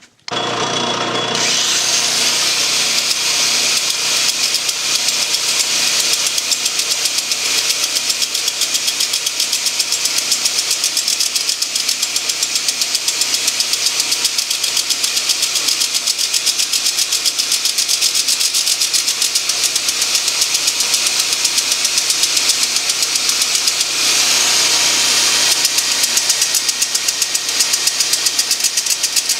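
A small engine starts abruptly and runs steadily at speed with a rapid, even pulse. It gets a little louder about three-quarters of the way through.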